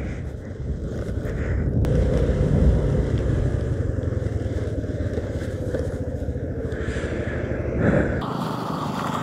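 Honda Activa 3G scooter's small single-cylinder engine running steadily at a crawl, the scooter rolling slowly over loose stones on a rough gravel road, heard as a continuous low rumble.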